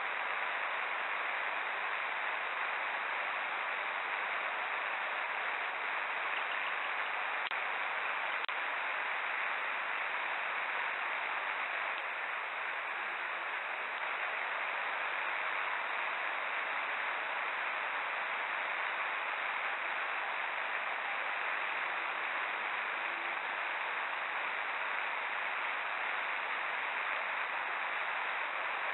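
Steady hiss of pouring rain picked up by a security camera's microphone, even and unbroken, with a couple of faint ticks about eight seconds in.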